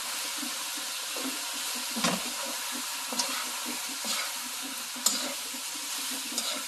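Thin-sliced beef brisket frying in a wok with chili flakes, green onion and garlic: a steady sizzle while it is stirred, with a few sharp clicks of the spoon against the pan.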